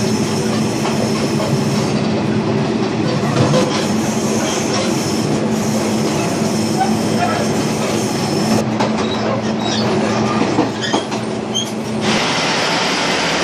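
A moving passenger train heard from on board: a steady loud rumble and hum of the running carriage, with wheel clatter on the rails. Near the end it cuts abruptly to a plainer steady hiss.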